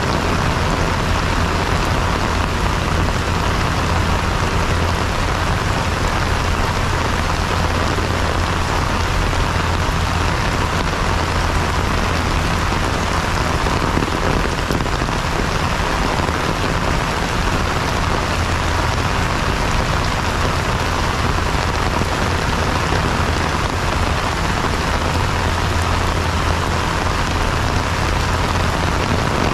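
Heavy rain pouring steadily onto wet paving, an even, unbroken hiss of splashing drops.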